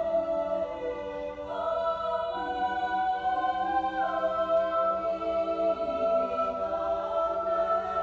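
Mixed-voice high school choir singing, holding long sustained chords that shift slowly from one chord to the next a few times.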